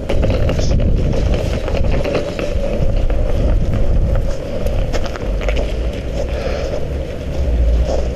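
Footsteps crunching in packed snow while walking, a run of short irregular crunches over a steady low rumble.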